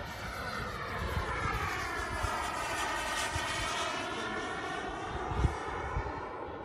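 Radio-controlled MB-339 model jet flying past, its engine giving a steady multi-toned whine that is loudest in the middle of the pass and shifts slowly in pitch. A brief low thump comes about five and a half seconds in.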